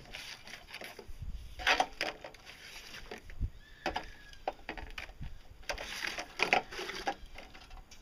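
Lengths of pipe being rummaged through and pulled from a scrap pile: irregular knocks and clatters with rustling, the loudest clacks about two seconds in and again near six and a half seconds.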